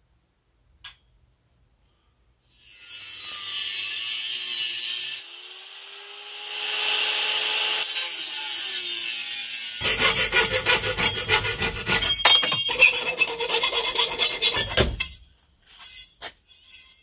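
Corded angle grinder with a cut-off wheel cutting an aluminium bar held in a vise. The motor comes in with a high hiss about two and a half seconds in, eases briefly, then bites harder for about five seconds of louder, rougher cutting before stopping, followed by a few light clinks of the bar being handled.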